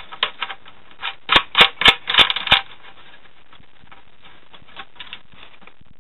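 Small metal clicks and clinks from nuts being handled and threaded by hand onto a bolt, putting on a double nut. A quick run of sharp clicks comes in the first half, then only faint ticking.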